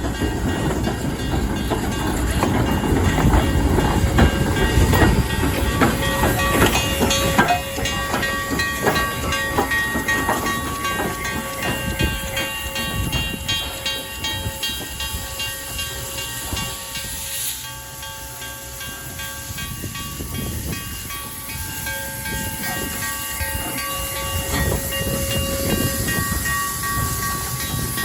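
A train running on the track, with clicking over rail joints and steady high squealing tones from the wheels, along with a hiss. The rumble and clicks are loudest in the first third, fade around two-thirds of the way through, then build again.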